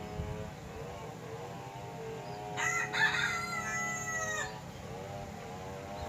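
A rooster crows once, a call of about two seconds ending on a long held note, over a steady hum.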